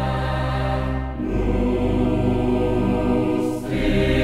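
Background music of slow, sustained chant-like chords, the harmony shifting about a second in and again near the end.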